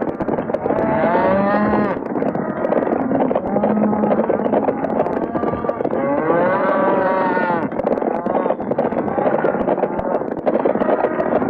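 Cattle stampede: a herd of cattle running in a dense, steady rumble of hooves, with cattle bawling over it several times, two long bellows about a second in and again at about six seconds.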